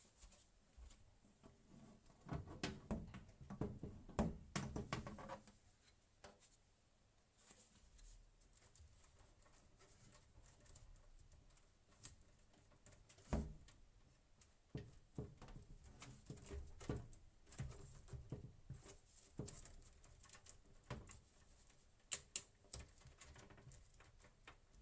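Faint, scattered clicks, taps and knocks of hands handling small objects, busiest between about two and five seconds in, with a sharper knock near the middle and two sharp clicks near the end.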